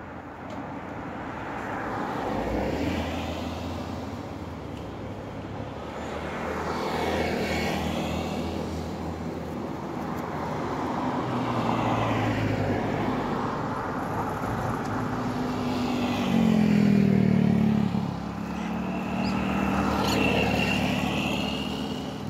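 Road traffic passing close by: about five vehicles go by one after another, each swelling and fading away. The loudest pass, about two-thirds through, has a low engine drone with a clear pitch.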